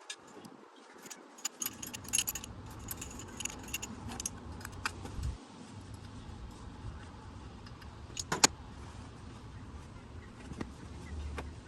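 Metal hand tools and small parts clinking and clicking against each other as engine components are unbolted, with a sharp louder clack about eight seconds in.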